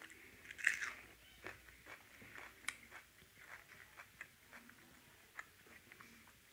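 Close-miked chewing and mouth sounds of someone eating soft puri with potato curry: wet smacks and clicks throughout, the loudest burst coming just under a second in.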